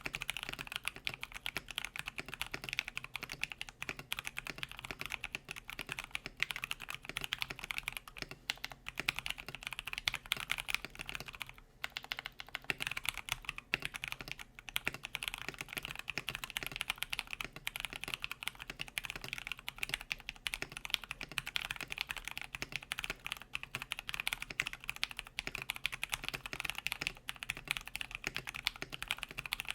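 Continuous typing on a KBD67 Lite R1 mechanical keyboard with factory-lubed Pewter tactile switches, a polycarbonate plate and PBT keycaps: a dense, steady stream of keystrokes, with short pauses about 12 and 14 seconds in.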